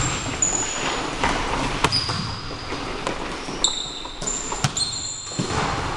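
Basketball sneakers squeaking on a hardwood gym floor in several short, high squeals as players cut and stop. A few sharp knocks of the basketball bouncing are mixed in.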